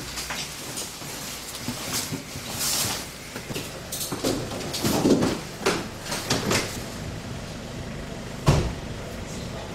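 Scattered knocks, clatter and rustling as gear is handled and doors are opened and shut, with one loud bang near the end.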